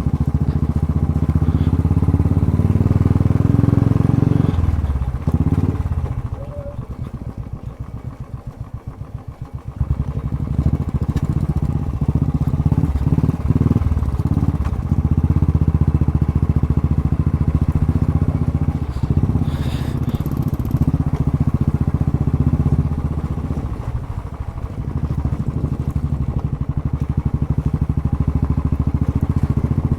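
Motorcycle engine running under way, its sound easing off between about five and ten seconds in, then picking up again.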